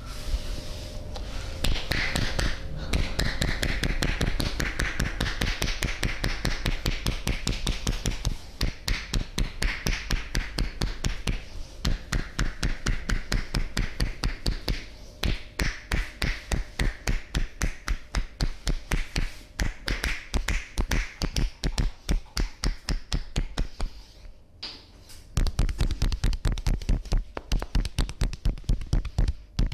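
Hands striking a person's body in a rapid percussive massage: an even run of sharp taps at about four to five a second, with a short pause about three-quarters of the way through.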